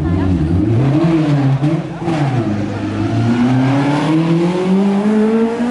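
Ford Fiesta rally car's engine working through a tight chicane: the revs rise and fall a few times in the first two seconds, then climb steadily as the car accelerates hard past close by.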